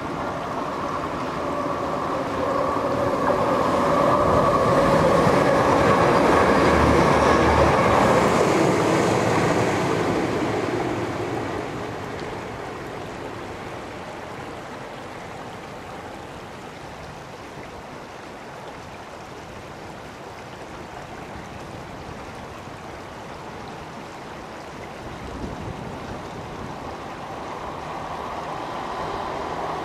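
Class 185 diesel multiple unit passing on the line, its engine drone with a steady tone building to a peak about seven seconds in and then fading away. After a long quieter stretch, a Class 150 diesel unit approaches near the end, growing louder.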